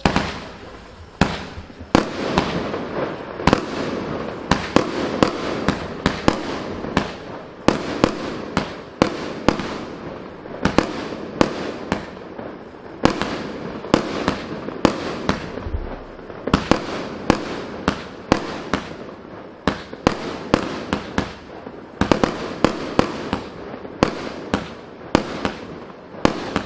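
Pangu Fireworks 'Mad Max' cake, 144 shots of 25 mm tubes, firing in a rapid continuous volley. There are sharp launch and burst reports about two to three a second, over a constant noisy hiss and crackle of the bursting stars.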